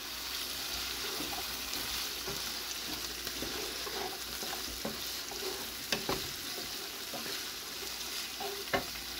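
Ground beef, onion, bell pepper and tomato sizzling in a granite-look nonstick skillet while a wooden spatula stirs and scrapes through them, with a few sharper clacks of the spatula against the pan.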